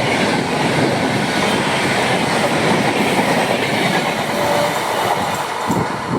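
Coaches of the 12303 Poorva Express passing at speed: steady rolling noise with wheels clattering over the rail joints, easing near the end.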